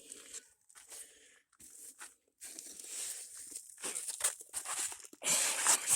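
Irregular crunching, scraping and rustling of footsteps on dry dirt, rocks and brush on a steep slope, with a louder rush of crunching just before the end.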